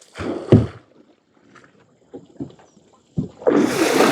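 Water splashing: two short splashes near the start and a few faint knocks, then a louder, longer rush of churned water near the end.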